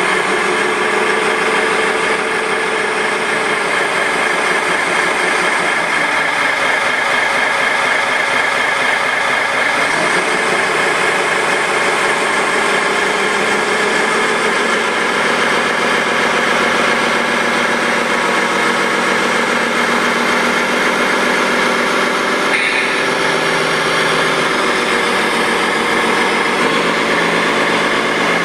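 Radio-controlled wheel loader working a granite block beside an RC truck: a steady engine-like running sound with a whine over it, shifting in pitch about ten seconds in and again around fifteen seconds.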